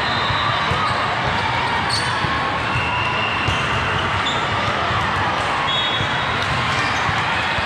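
Steady din in a large echoing hall, with indistinct voices and many short thuds throughout.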